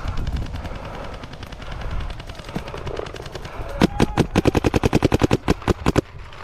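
Paintball marker, a Planet Eclipse Gtek 180R, firing a rapid string of about twenty shots in two seconds, starting a little past halfway. Before it there is low wind rumble on the microphone.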